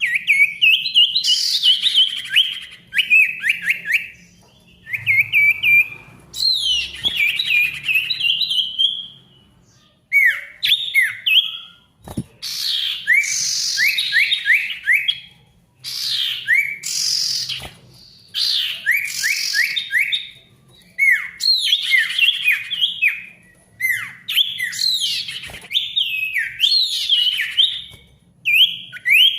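Male sirtu songbird singing a loud, busy song: phrases of rapid, repeated sweeping notes, each phrase lasting a second or two with short gaps between, over and over.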